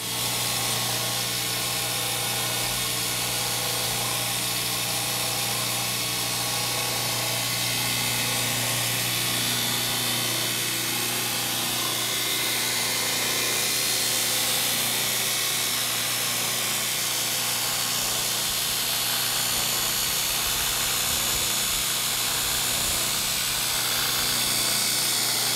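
Shop-built 2x72 belt grinder switched on and running free, with no grinding. Its 1 hp, 1740 RPM electric motor and the belt over the wheels make a steady hum that comes on suddenly and then holds even.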